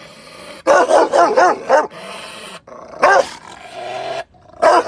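Rottweiler barking angrily in quick runs: a rapid string of several barks about a second in, another bark about three seconds in, and more barks near the end.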